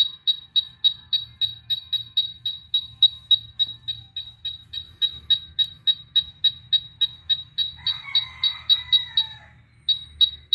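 UNI-T UT387E wall scanner beeping rapidly, about three to four short high beeps a second, its alert that it has detected metal behind the wall. The beeps pause for a moment near the end, then resume.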